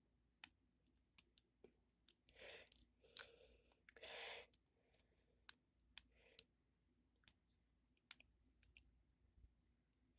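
Faint, scattered clicks of a lock pick and tension wrench working the pins inside a deadbolt's pin-tumbler cylinder.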